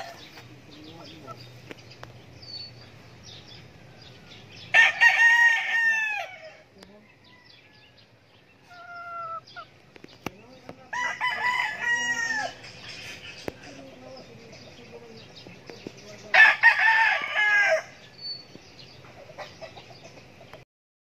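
Gamecock roosters crowing, three crows about five to six seconds apart, each lasting about a second and a half. A few short high chirps come around the middle.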